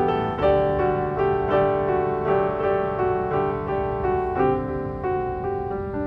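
Background piano music: a gentle melody of single notes struck one after another at an even pace.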